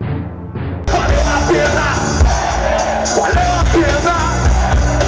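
Live rock music with a singer and some crowd shouting, cutting in suddenly about a second in after a brief quieter bit of music.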